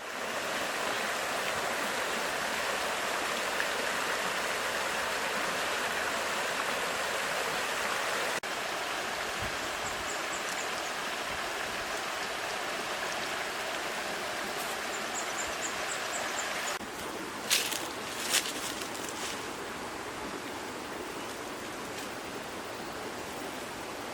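Steady outdoor rushing noise that drops a little in level twice, with a few faint high chirps and two sharp clicks about two-thirds of the way through.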